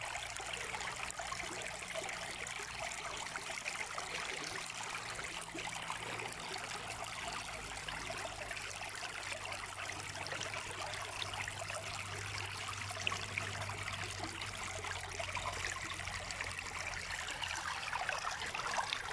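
Mountain river flowing over rocks: a steady, even rushing and splashing of water that never lets up.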